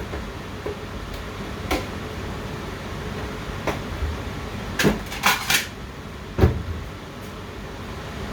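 A few short knocks and clinks of kitchenware: dishes, cupboard or utensils being handled. They come in a cluster about five seconds in, and the loudest comes at about six and a half seconds, over a steady background hum.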